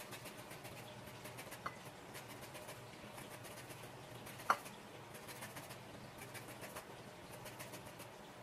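Orange being zested on a handheld rasp grater: faint, quick scratchy strokes of peel over the metal teeth, coming in short runs. Two short clinks cut through, the louder one about four and a half seconds in.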